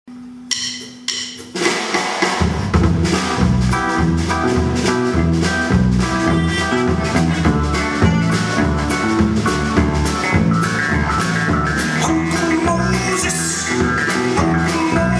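Indie rock band playing live. After a few short struck notes, drum kit, bass, electric guitar and keyboards come in together about one and a half seconds in and play on steadily.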